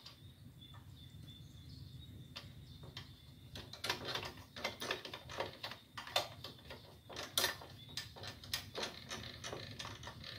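Small irregular metallic clicks and knocks from hand work at a motorcycle's rear wheel hub. They start about four seconds in and come roughly three or four a second, over a steady low hum.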